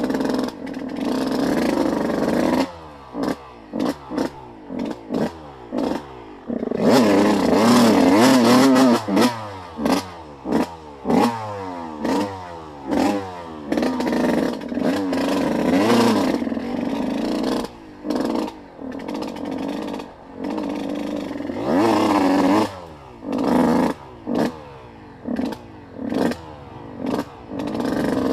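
Off-road vehicle engine revving up and down over and over through changing throttle while riding a rough trail, with clattering knocks. It runs hardest about a quarter of the way in.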